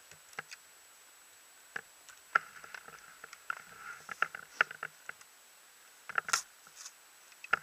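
Scattered clicks and short rustles from a paramotor harness, risers and lines being handled close to the microphone, irregular and with quiet between them; no engine running.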